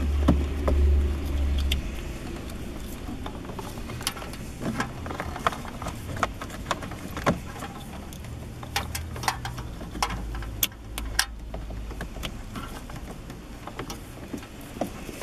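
Plastic wiring-harness connectors and loose wires being handled and plugged into the back of a car stereo head unit: scattered clicks, taps and rattles, with a low rumble over the first couple of seconds.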